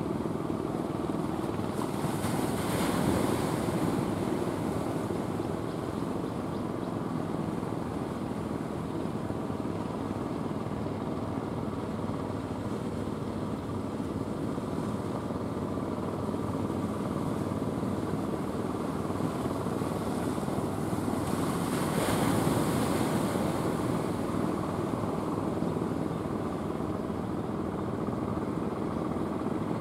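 Small engine of an outrigger fishing boat running steadily as the boat comes in, with waves washing up on the shore, swelling about three seconds in and again about twenty-two seconds in.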